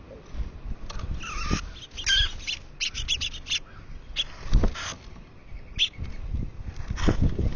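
Wind rumbling on the microphone, with a few short bird chirps and scattered sharp clicks.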